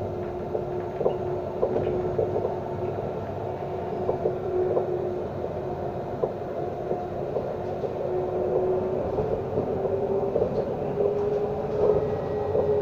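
Inside a Nottingham Express Transit tram under way: a steady electric whine over running noise, with frequent light clicks and rattles, the whine rising slightly in pitch near the end.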